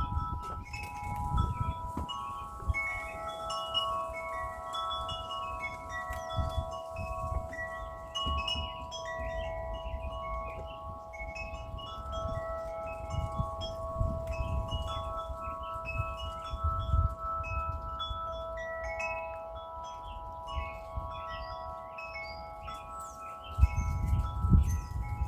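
Metal wind chimes ringing continuously in gusty wind, with many overlapping strikes and long ringing tones. Low rumbling wind gusts run underneath and strengthen near the end.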